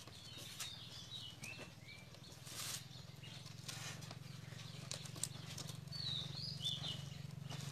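Thin bamboo strips clicking and rustling faintly as they are worked into a woven basket base, with birds chirping in short calls in the background, near the start and again later, over a low steady hum.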